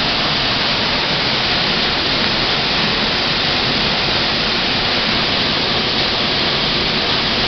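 Waterfall pouring into its pool, a loud, steady rush of water.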